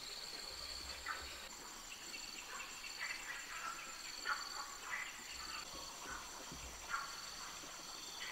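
Faint, steady chirring of insects in two high, pulsing tones, with scattered short chirps below them.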